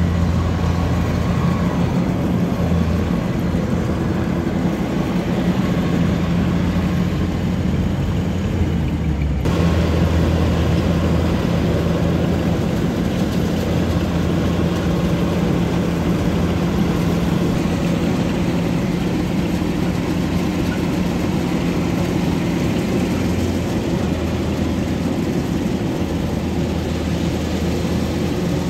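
Rice combine harvester's diesel engine running steadily, with a short break about nine seconds in.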